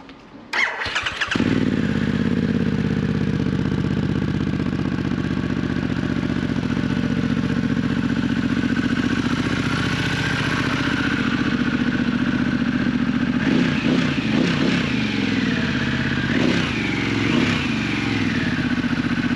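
Harley-Davidson Pan America's 1250 V-twin with a newly fitted Scorpion exhaust cranking and starting about half a second in, then idling steadily. The engine note swells slightly a few times in the last few seconds.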